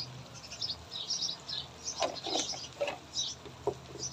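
Small birds chirping, short bright calls repeated every half second or so, with a few lower sounds about halfway through.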